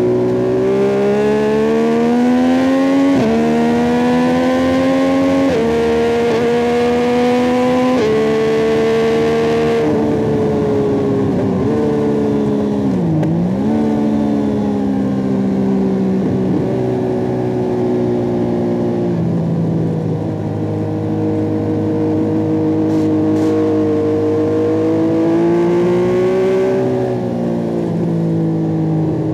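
Yamaha MT-09 SP's three-cylinder CP3 engine through an Akrapovic carbon racing exhaust, heard from on board at track speed. The revs climb through three quick upshifts in the first eight seconds. Then the throttle closes and the revs fall, with a short dip as the bike shifts down. It pulls up through the gears again, with upshifts in the middle and near the end.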